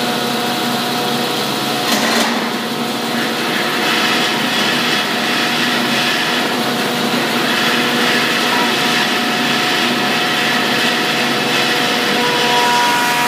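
Old cast-iron wood planer running steadily at speed, powered through a phase converter: a steady machine hum with several high whining tones. There is a short sharp knock about two seconds in.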